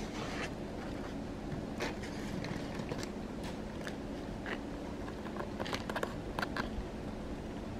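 Light crackles and clicks from an opened sweet's packaging and wafer being handled, bunched together about six seconds in, over a steady low hum.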